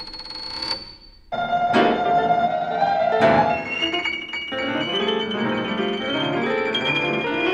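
Contemporary piano music with electronics: a high, rapidly repeated tone breaks off under a second in, and after a brief pause dense piano chords enter abruptly with two sweeping strikes, then carry on as a busy, ringing texture with a slowly rising high tone above it.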